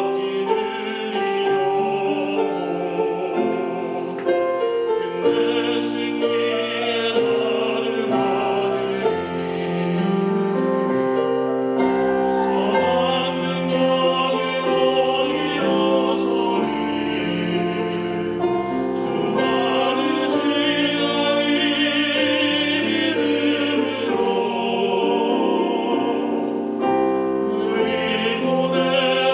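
A vocal trio singing a church special song in harmony, several voices holding sustained notes with vibrato.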